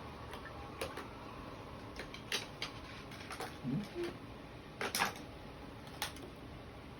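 Scattered light clicks and taps of painting tools against a watercolour palette as paint is picked up and mixed, with two close together about five seconds in.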